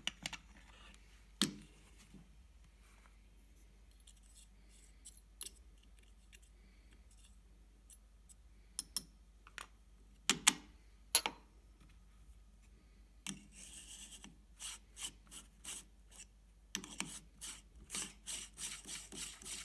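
Scattered clinks and knocks of a stainless espresso portafilter and dosing funnel being handled and set down, then light scraping and a quick run of rubbing clicks near the end as a coffee distribution tool is turned on the grounds in the basket.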